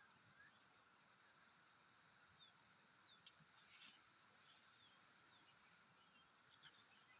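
Faint rural ambience: a steady high insect drone with a few short bird chirps, and a brief rustle a little past halfway.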